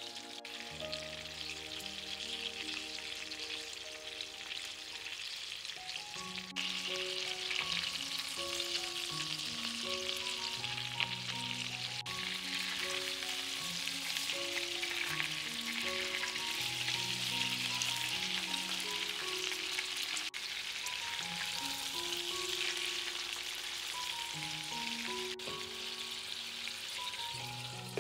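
Food frying in a hot pan, with a steady sizzle that grows louder about six seconds in. A slow background melody plays underneath.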